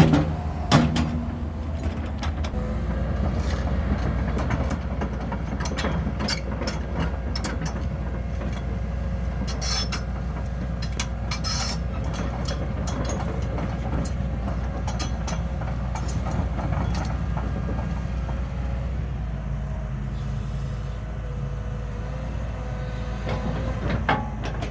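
Cat 312E excavator's diesel engine running steadily, with scattered metallic clanks and knocks over it.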